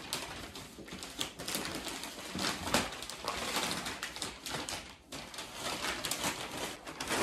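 Brown kraft wrapping paper being torn and crumpled off a large cardboard box: a continuous run of paper crackles and rips.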